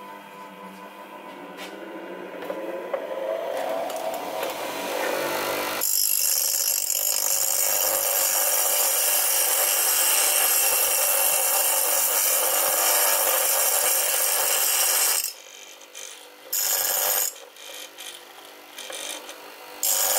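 Bench grinder motor running up to speed, its hum rising in pitch over the first few seconds. Then the cast-iron engine soleplate casting is held against the wheel: a loud, steady grinding hiss for about ten seconds, followed by shorter touches of grinding near the end.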